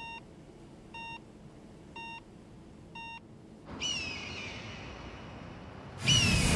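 Patient monitor beeping four times, once a second. Then an eagle screeches twice: a falling cry about four seconds in and a louder one near the end.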